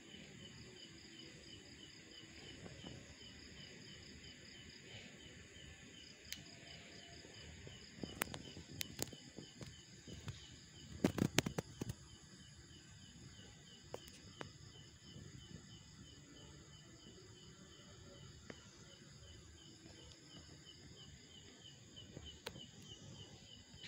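Insects chirping steadily in a faint, even pulse of about four chirps a second, like night crickets. A few sharp clicks and knocks come about eight seconds in and again, loudest, about eleven seconds in.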